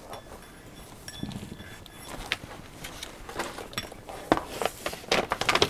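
A cloth wiping and polishing the acrylic top of a graphics-card water block, with scattered light taps and clicks as the card is handled. The clicks come thicker and sharper in the last couple of seconds.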